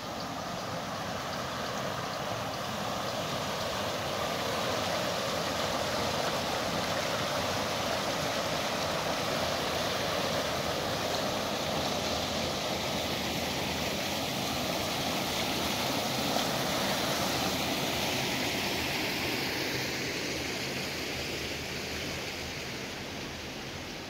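Water running along a stone-lined channel: a steady rush that grows louder a few seconds in and eases off near the end.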